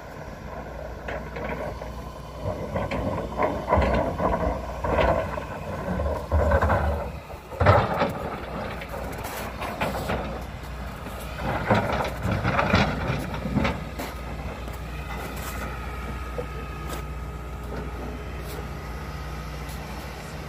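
Tracked excavator's diesel engine running with a steady low drone, while its bucket works in rocks and shallow water, giving loud irregular scraping and clunking for most of the first two-thirds, the loudest about eight seconds in.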